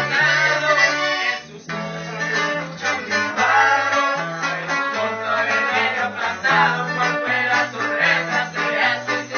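A small band playing live: button accordion over strummed and plucked guitars, with a bass line stepping from note to note. The music dips briefly about a second and a half in.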